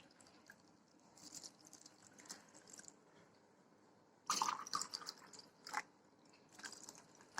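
Water being poured from a tumbler onto jaggery in a vessel: faint trickling, then a short louder splash about four seconds in, followed by a light knock.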